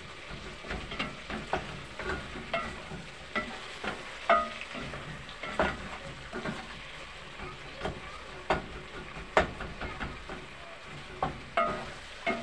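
Wooden spoon stirring and mashing softened tomatoes in a granite-coated metal pot, knocking against the pot in irregular clinks with a brief ring, over a soft sizzle from the cooking stew.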